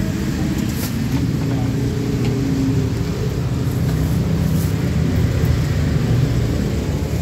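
Steady low rumble of nearby motor traffic, with a couple of faint brief clicks.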